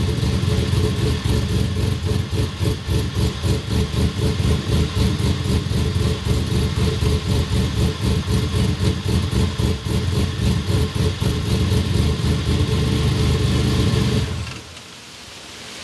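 Buick Regal GS engine idling steadily through a side-exit exhaust with a round Magnaflow muffler, a low, even pulsing note. It stops abruptly about 14 seconds in.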